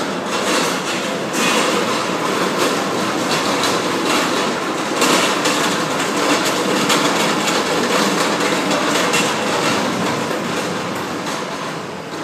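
Loud, steady din of a busy airport terminal curb, thick with small clicks and rattles.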